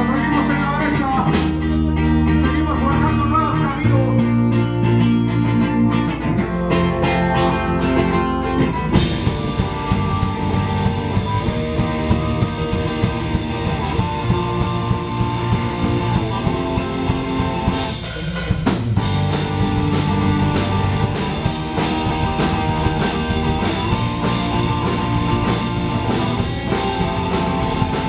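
Rock band playing electric guitar, electric bass and drum kit. Guitars play alone for about the first nine seconds, then the drums and full band come in, with a short break about two-thirds of the way through.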